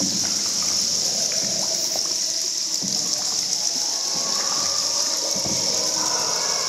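Water in an underground river cave: trickling and splashing over a steady high-pitched hiss.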